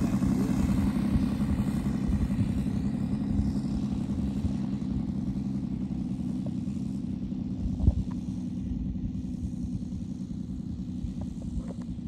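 Saito FG-90R3 three-cylinder radial four-stroke petrol engine of an RC Corsair model idling steadily at low throttle, slowly growing fainter. A single short knock sounds about eight seconds in.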